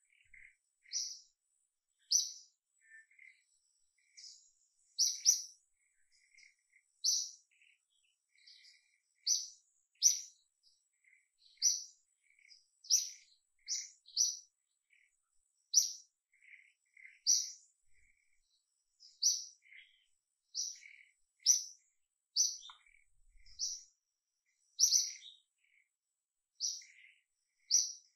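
A bird chirping: short, high chirps repeated steadily, about one every second, sometimes two in quick succession.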